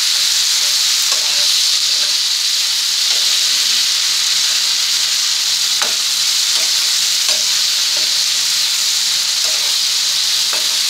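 Chopped tomatoes and onions sizzling in a frying pan, a steady hiss, while a spatula stirs them, scraping and knocking against the pan now and then.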